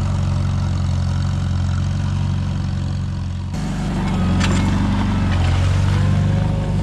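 Farmall tractor engine running steadily while pulling a plow, getting somewhat louder about halfway through.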